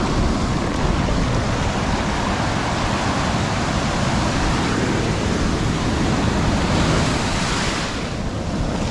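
Ocean surf breaking and washing up the beach right at the water's edge: a steady, loud rush of foaming water.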